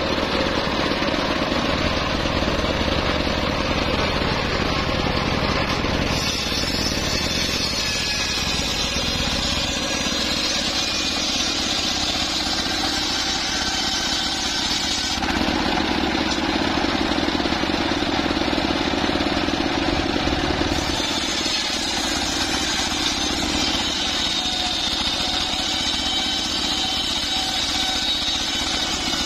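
Homemade bench circular saw ripping teak planks lengthwise, its large blade driven by a stationary engine running steadily under load. The tone shifts abruptly a few times.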